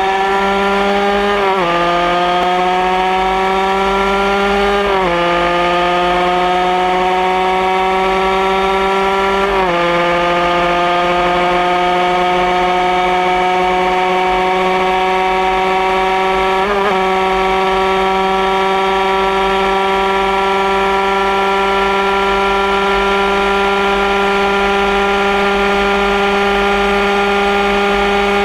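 Honda CR80 80cc two-stroke engine in a Honda RS road-racing motorcycle, heard from onboard at full throttle: its pitch climbs through each gear and dips at four quick upshifts, then holds a steady high pitch for the last ten seconds or so.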